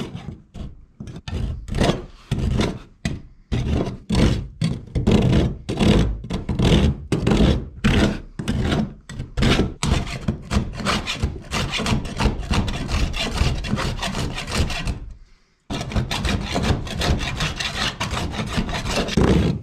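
Hand-held pocket plane rasp scraping back and forth over a raised plastic-welded patch on a kayak hull, shaving the bumped-out plastic down. The strokes are spaced at first and come quicker and denser from about halfway in, with a short pause near the end before they resume.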